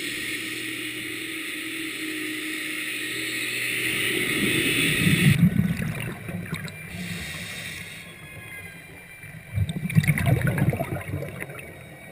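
Scuba diver's exhaled bubbles gurgling underwater in two bursts, about five seconds in and again about ten seconds in. A steady hum runs under the first few seconds and cuts off suddenly.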